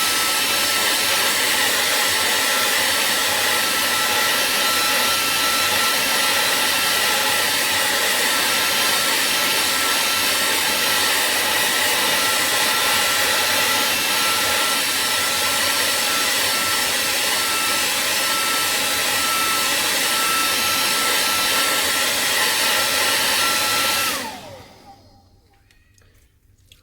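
Hot-air blower running steadily: a loud rush of air with a high whine that holds one pitch, then winds down and stops about 24 seconds in, its whine falling as the motor slows.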